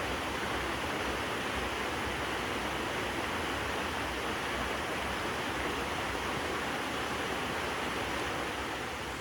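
Waterfall: a steady, continuous rush of falling water, easing slightly near the end.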